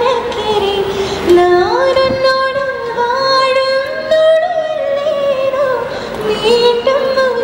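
A woman singing a slow melody into a handheld microphone, holding long notes and sliding between pitches, with a rise about a second and a half in.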